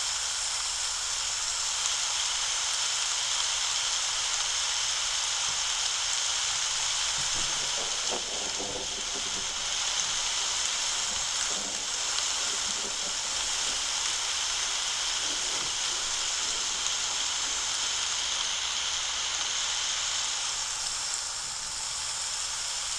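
Recorded storm sound effect from a smart-lighting app's Lightning scene, played through a phone's speaker: a steady hiss of rain, with a brief lower rumble of thunder about eight seconds in.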